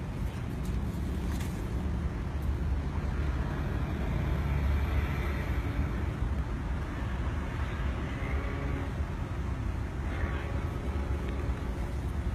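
A motor vehicle running steadily: a continuous low drone with a noisy hiss above it.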